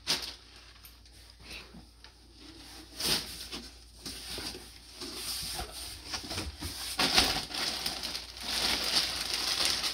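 Plastic packaging and clothing rustling and crinkling as garments are handled and pulled from a box. A sharp click comes at the very start, and the crinkling grows louder from about three seconds in.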